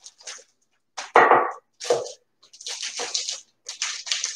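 A wooden rolling pin beating and rolling a chicken breast inside a plastic zipper bag on a wooden cutting board, to flatten it. The plastic crinkles and rustles in short, irregular bursts, with a dull thump about a second in and another at two seconds.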